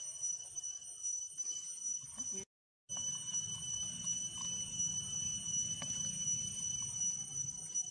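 Steady, high-pitched insect drone. It cuts out completely for a moment about two and a half seconds in, then carries on over a low rumble.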